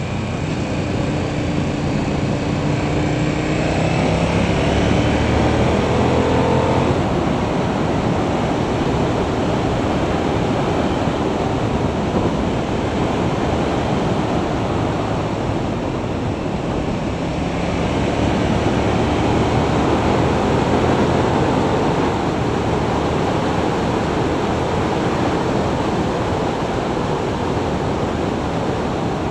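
Motorcycle engine accelerating, its pitch rising over the first seven seconds and again from about seventeen seconds in, under a steady rush of wind noise on the microphone at road speed.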